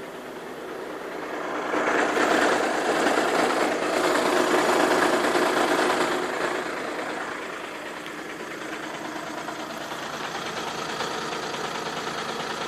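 2012 Volkswagen Passat CC's 2.0 TDI four-cylinder turbodiesel engine running, getting louder for about four seconds from about two seconds in, then settling back to a steady run. It carries a strange noise that the owner is trying to pin down.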